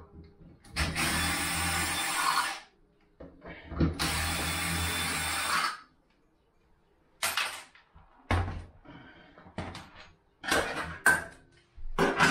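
A handheld power tool motor runs in two bursts of about two seconds each, then several sharp knocks and clatter of hard parts.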